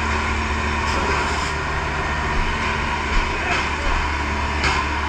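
A fire pumper truck's engine running with a steady low drone.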